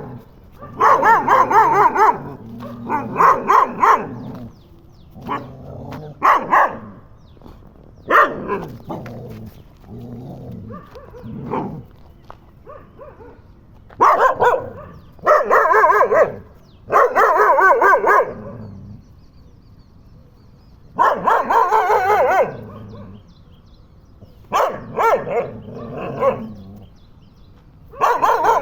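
Dog barking in repeated bursts, each a quick run of barks about a second long, with short pauses between.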